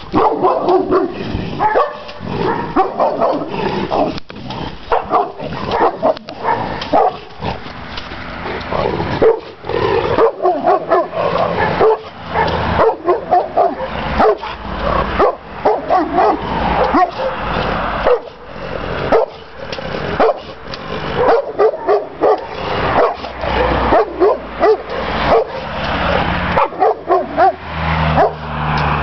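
Šarplaninac (Yugoslav Shepherd Dog) barking in rapid, repeated volleys, many barks close together: territorial barking while guarding its yard.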